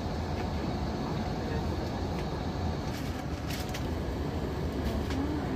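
Steady low rumble and hiss of an airliner's cabin noise, with a few faint clicks about halfway through and near the end.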